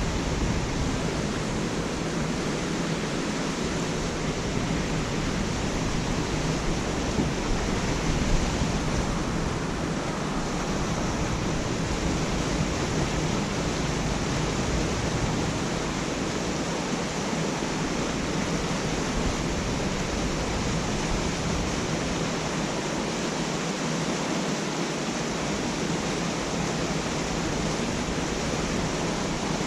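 Steady rushing of flowing water, an even wash of noise with no breaks.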